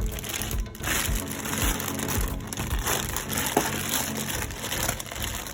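Crinkling and crushing of plastic packaging being handled as a toy set is unpacked, over background music with a low beat about twice a second that fades out about halfway.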